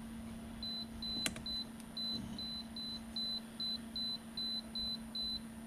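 Electronic DC load tester beeping about a dozen times in quick, even succession, short high beeps at two or three a second, with a single sharp click about a second in. Its cooling fan hums steadily underneath.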